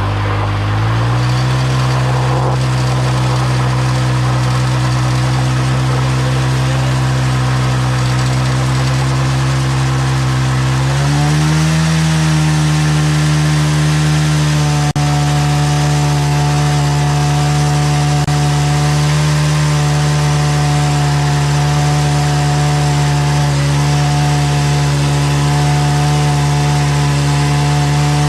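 TVS Apache single-cylinder motorcycle engine held at high revs during a burnout, spinning the rear tyre against the ground. The pitch steps up about a second in and again about eleven seconds in, then holds steady.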